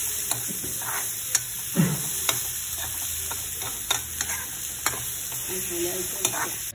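Sliced onions and curry leaves sizzling in hot oil in a kadai while being stirred with a steel spoon, which clicks and scrapes sharply against the pan about six times.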